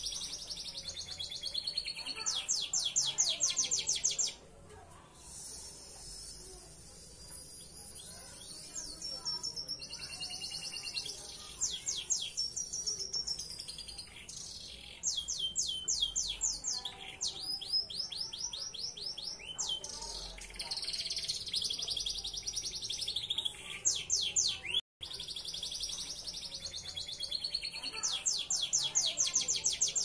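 Belgian Bossu canary singing: loud phrases of fast trills and rolling notes, with a quieter stretch of softer warbling in the first half.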